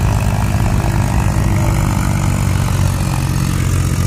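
Eicher 333 tractors' three-cylinder diesel engines pulling fully loaded trolleys up a sandy climb: a steady, loud low drone that holds even throughout.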